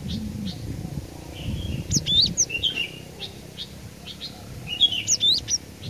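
Cinereous tit (glatik batu) singing: two bursts of sharp, quick chirps with fast upward-sweeping notes, about three seconds apart.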